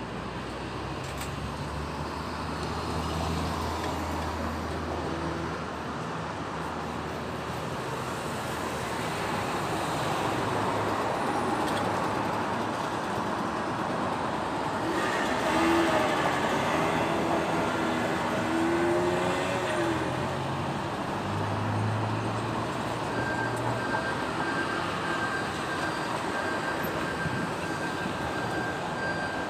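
Busy city road traffic: engines running and vehicles passing in a steady wash of noise. A repeated high electronic beep starts about two-thirds of the way in.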